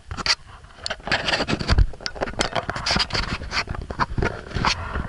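Handling noise of a small camera being moved about: irregular scraping, rubbing and knocks, with a heavy thump a little under two seconds in.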